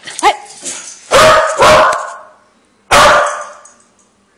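Corgi talking back at her owner: a few short rising yips, then two loud barks in quick succession and a third about a second later.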